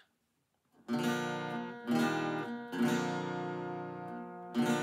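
Acoustic guitar strumming chords, starting about a second in after a moment of silence. Each strum is left to ring, as an introduction before the singing.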